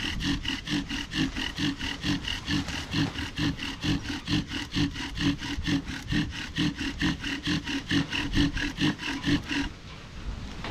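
Bow drill in use: a wooden spindle driven back and forth by the bow, grinding in the notch of a wooden fireboard, with a rasping squeak on each rapid stroke. The strokes stop near the end.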